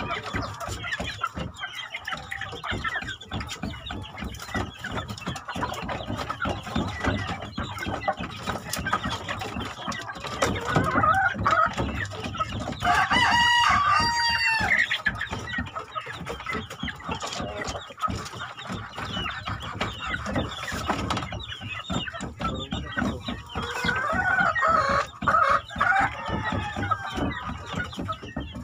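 Backyard chickens clucking continuously while being fed, with a rooster crowing once about halfway through.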